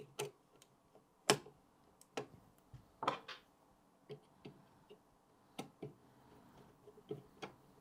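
Irregular light clicks and taps of a metal M.2 heatsink plate being handled and fitted back onto a motherboard, the sharpest about a second in and again about three seconds in.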